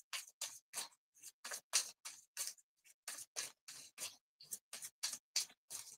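A deck of tarot cards being shuffled by hand, a short papery swish about three times a second.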